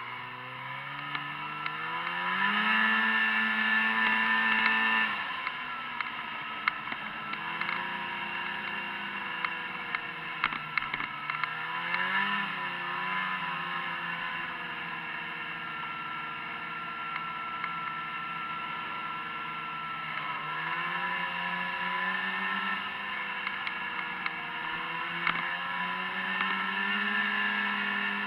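Snowmobile engine revving up, its pitch rising over the first couple of seconds, then running at cruising speed, easing off and picking up again three times. Scattered knocks and clatter from the sled running over the trail.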